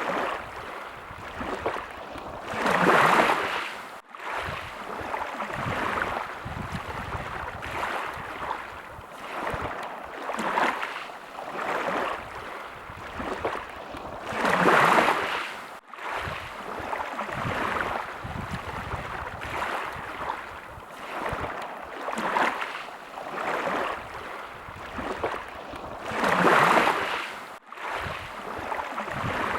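Small sea waves washing in and out, swelling and fading every couple of seconds, with a larger wash about every twelve seconds, each followed by a brief dropout in the sound.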